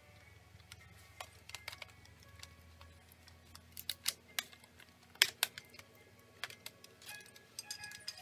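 Quiet background music, with scattered sharp clicks and taps from hands handling a laptop's plastic case and motherboard parts. The loudest clicks come about four and five seconds in.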